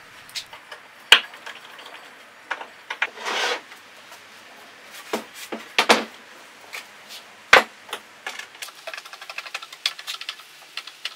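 Screws being tightened by hand into the wooden boards of an iron-pipe shoe rack: scattered sharp clicks and knocks of tool and metal fittings against the wood, a short scrape about three seconds in, and a run of quick small ticks near the end.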